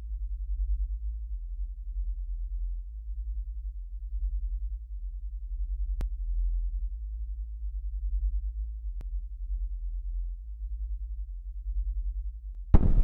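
Deep, steady low drone of a film score, slowly swelling and fading, with two faint clicks partway through. Near the end a sudden loud crash cuts in.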